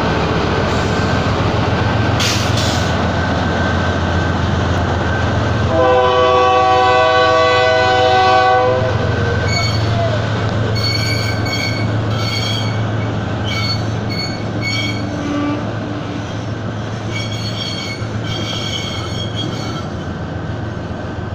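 Diesel locomotives of a goods train rumbling past slowly, with a loud horn blast about three seconds long near the middle. Afterwards the wagons roll by with repeated short high-pitched wheel squeals.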